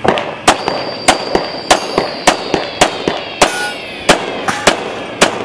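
Glock 35 pistol in .40 S&W firing a fast, uneven string of about a dozen shots, roughly one every half second.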